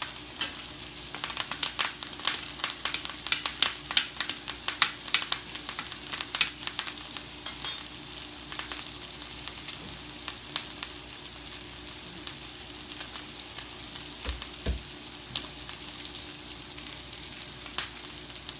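Steaks searing in a hot skillet of oil and butter, sizzling with many sharp crackles and pops from fresh thyme added to the hot fat. The popping is thickest in the first several seconds, then thins to a steadier sizzle.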